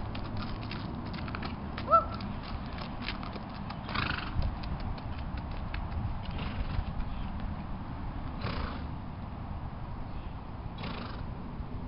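A horse's hooves walking on gravelly dirt: a run of small clicking steps that thin out and fade as the horse moves away. About two seconds in there is one short high squeak, the loudest sound, and a few brief rushing puffs follow later.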